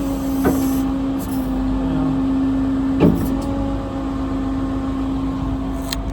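A service truck's hydraulic crane outriggers being lowered while its 9.3-litre MaxxForce diesel runs, with a steady drone throughout. There are light clicks about half a second in and near the end, and a sharper knock about three seconds in.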